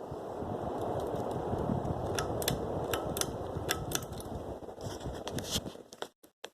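52-inch Hampton Bay Gazebo ceiling fan running, its airflow making a steady rushing noise on the microphone. A series of sharp clicks, roughly in pairs, comes in the middle. The sound cuts off about six seconds in.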